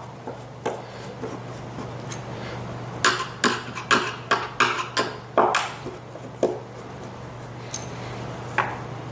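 A string of sharp knocks and taps from handling parts during furniture assembly, bunched together in the middle with a couple of single ones later: the shipping-only wooden pieces being taken out with a screwdriver. A steady low hum runs underneath.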